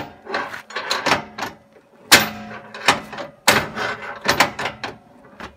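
Metal clanks and knocks from a trailer weight-distribution hitch being worked by hand: chains, spring bar and lifting bar knocking together. There are several separate sharp hits, the loudest about two seconds in.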